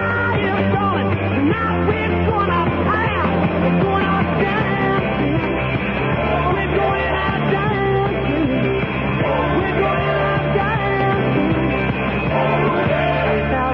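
Rock music broadcast on AM long wave, picked up on a Kenwood R-5000 communications receiver. It plays continuously at a steady level and sounds narrow and muffled, with everything above about 4 kHz cut off by the AM channel.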